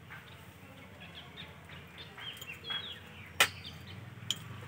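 Small birds chirping, short high chirps repeating many times over a low outdoor hum. One sharp click comes about three and a half seconds in and a fainter one near the end.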